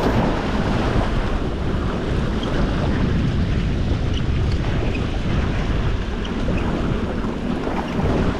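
Sea waves washing, with wind buffeting the microphone in a steady rumble.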